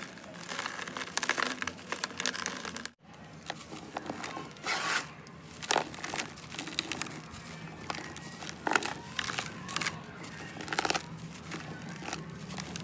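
A ball of dry sand-cement being crumbled by hand, grit breaking off and sifting down into a plastic tub in irregular crackly bursts. The sound cuts out briefly about three seconds in.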